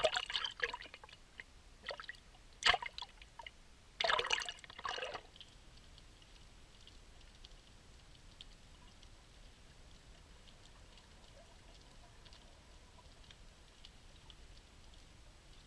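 Seawater splashing and sloshing over a camera at the sea surface in several bursts during the first five seconds. Then, underwater, a faint steady hiss with light scattered crackling clicks.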